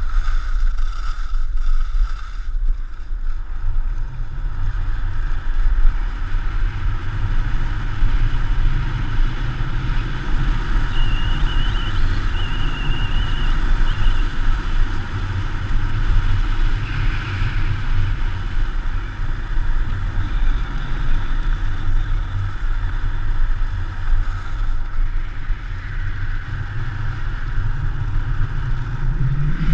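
Wind buffeting a GoPro's microphone during a fast ski descent, a steady heavy rumble, with the hiss of skis sliding over packed snow.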